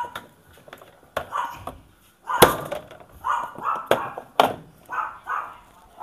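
Sharp plastic clicks and snaps as the top control-panel cover of a Sanyo top-loading washing machine is pried loose with a screwdriver and lifted open. The loudest crack comes about two and a half seconds in, with two more clicks a second or two later.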